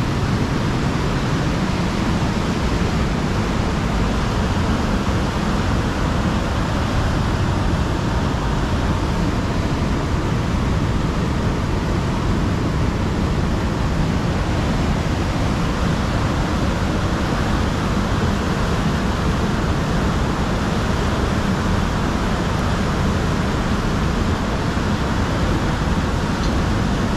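Steady rush of fast-flowing river water, an even noise with no breaks.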